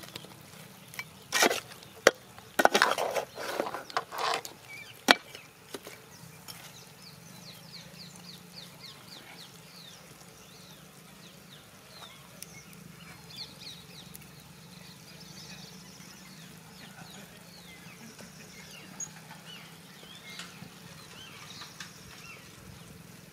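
Slotted metal spatula scraping and knocking against a large frying pan while stirring chicken pieces: a burst of loud, sharp strokes over the first five seconds or so, then only a low, steady background.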